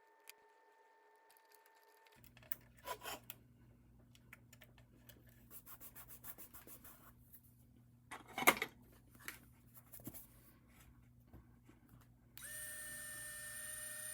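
Hand-work on small model parts: irregular rubbing and scraping strokes over a low hum, with a sharp knock about eight seconds in. About twelve seconds in, a steady high-pitched whine starts and carries on.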